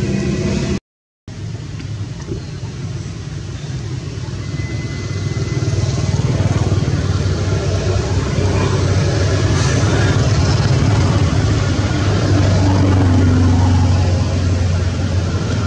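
Steady low rumble and hiss of outdoor background noise. It cuts out briefly about a second in and grows louder from about six seconds on.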